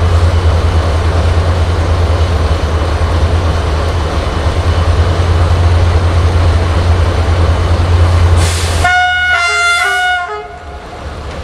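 Approaching diesel locomotive sounding its horn in a few short blasts near the end, over a steady low rumble.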